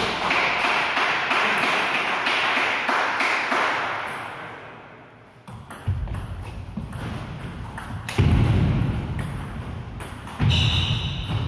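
Table tennis rally: the ball clicking back and forth off the bats and the table in quick succession. A few dull thuds come about six, eight and ten seconds in.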